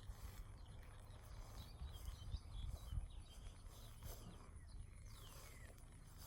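Faint outdoor ambience: steady insect chirring and a few bird chirps around the middle, with one falling whistled note near the end. Low gusty rumble of wind on the microphone runs underneath.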